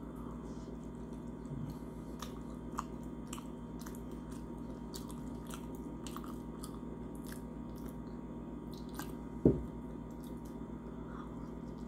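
Close-up chewing of a Jamaican beef patty with avocado: many small wet mouth clicks over a steady low hum. A single loud thump about nine and a half seconds in.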